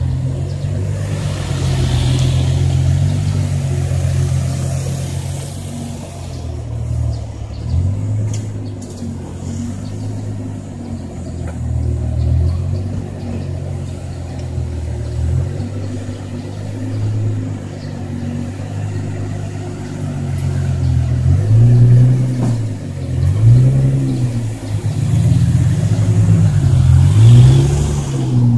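Nissan GT-R R35's twin-turbo VR38DETT V6 running at low revs as the car creeps forward, then blipped several times in the last third, each rev rising and falling.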